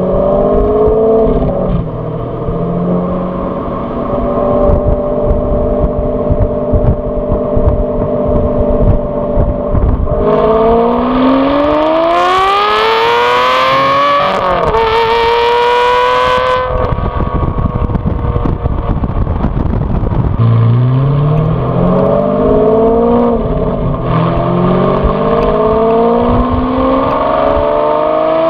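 Aston Martin V12 Vantage S's V12 engine and exhaust, modified with a power pack, heard close at the tail of the car. It cruises at steady revs, then pulls hard with rising revs through an upshift about halfway through, drops off as the throttle lifts, and accelerates again through another gear change near the end.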